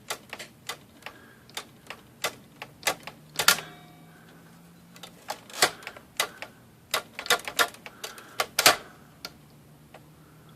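Smith Corona 5-series manual typewriter being typed on to test a freshly adjusted left margin stop: irregular key strikes, two or three a second, with two louder strokes about three and a half and eight and a half seconds in. The typing stops about a second before the end.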